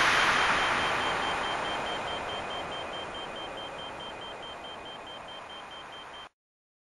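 A steady rushing noise fading out over about six seconds and then cutting off suddenly, with a faint high beep pulsing rapidly through it.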